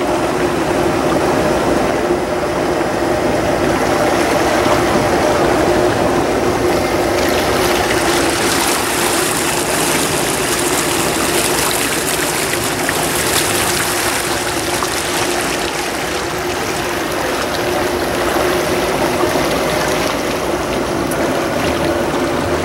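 Fishing boat's engine running steadily under way, with water rushing and splashing along the hull; the rushing hiss grows louder for several seconds in the middle.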